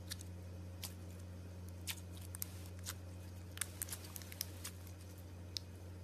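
Slime being handled, giving small irregular clicks and pops, about a dozen over a few seconds. A steady low hum runs underneath.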